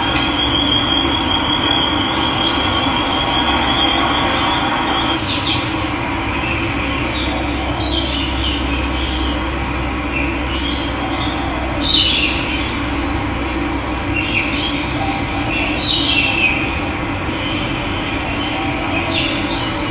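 Running water rushing steadily, with birds calling over it: a high, steady trill for the first five seconds, then several short chirps, the loudest about twelve seconds in.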